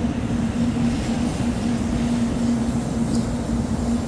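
Shinkansen train at the station platform: a steady low rumble with a constant hum.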